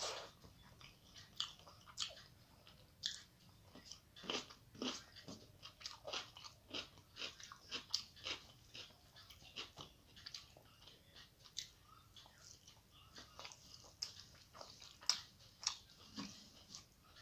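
Close-up eating sounds of a person eating rice, curry and omelette by hand: chewing with short, irregular mouth clicks about one or two a second, along with fingers working the food on a metal plate.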